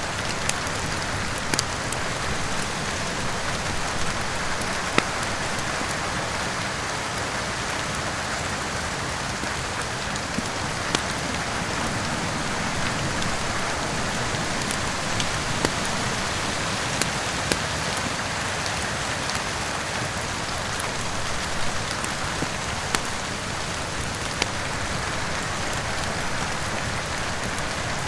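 Steady rain hiss mixed with a crackling wood fire, with scattered sharp pops at irregular moments over the rain.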